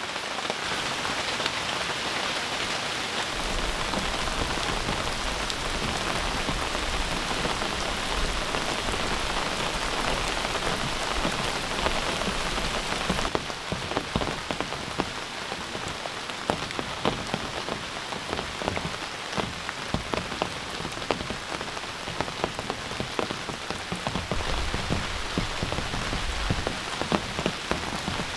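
Heavy rain pouring down in a steady, dense hiss. About halfway through the hiss thins at the top and more separate drops can be heard striking.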